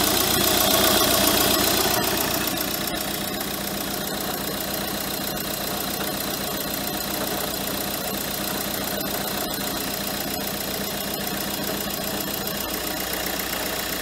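Renault Kangoo 3's 1.5 dCi diesel idling with a harsh mechanical noise from the front of the engine. The mechanic traces the noise to the alternator itself rather than its overrunning pulley, meaning a failing alternator. The noise is louder for about the first two seconds, then steady.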